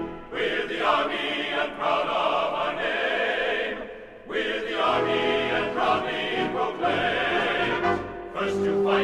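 Background music with a choir singing, dipping briefly about four seconds in before the singing resumes.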